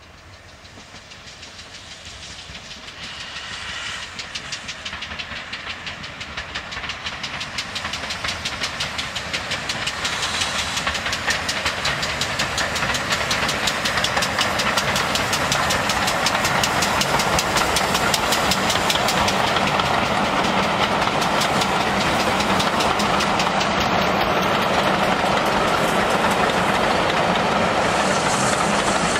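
Steam tank locomotive hauling a passenger train, its exhaust beats coming fast and growing steadily louder as it approaches, then holding loud as the engine and coaches roll past close by.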